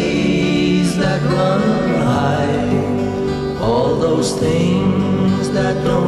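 Folk song with voices singing in harmony over guitar accompaniment.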